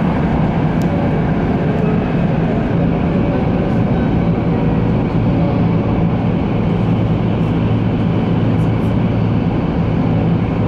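Steady running noise heard from inside an E2-series Shinkansen car at speed: a loud, even rumble with a constant low hum.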